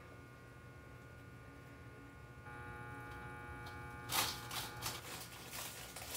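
A steady electrical hum that grows a little louder about two and a half seconds in, then a run of rustling and knocking handling noises starting about four seconds in.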